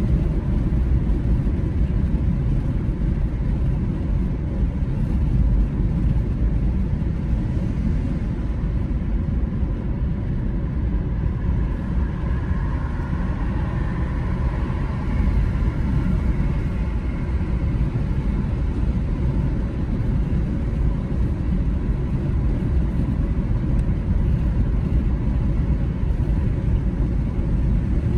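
Car cruising at a steady speed on a paved multi-lane road: steady, low road and tyre noise.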